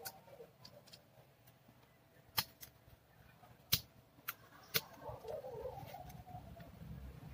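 Sharp plastic clicks and snaps as a laptop keyboard's metal backing plate is pried loose from the plastic lock pegs of the top case: a few faint ticks, then four louder snaps in the middle.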